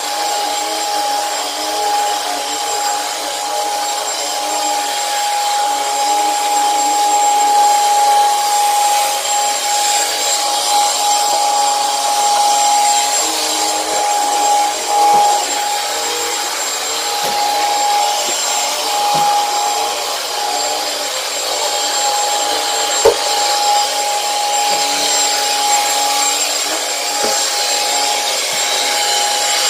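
Commercial vacuum cleaner running steadily with a constant whine as it is drawn over carpet, with a few light knocks and one sharper knock past the middle.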